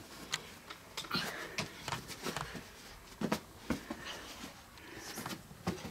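Irregular soft thumps and rustles of a child tumbling on a rug-covered floor as her hands and feet land, a knock every half second or so.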